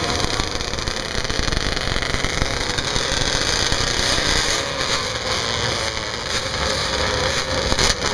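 ATV (quad) engines running in the sand, a steady mixed engine noise with no single clear rev.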